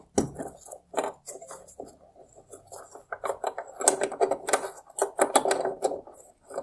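High beam bulb being twisted and worked loose in its socket in the plastic headlight housing: a run of small plastic clicks and scraping rubs from the gloved hand, growing busier and louder through the second half.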